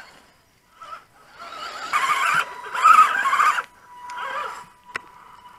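Electric motor and gearbox of a 1/10-scale RC crawler truck whining in bursts as it climbs over rock, the pitch wavering with the throttle and a rough scraping under it; a single sharp click near the end.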